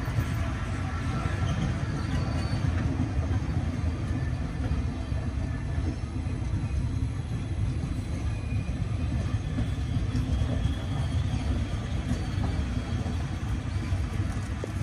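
Berlin S-Bahn class 485 electric multiple unit rolling past close by: a steady, low rumble of wheels on the rails.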